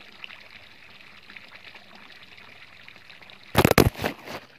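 Steady splashing of water pouring from a pipe outlet into a stream. About three and a half seconds in, a loud cluster of knocks and rustling as the recording phone falls off its tripod into the plants.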